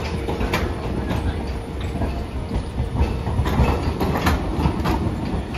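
Hiroden Green Mover LEX low-floor tram (car 1011) rolling past close by, a steady low rumble with a scatter of sharp wheel clicks on the rails.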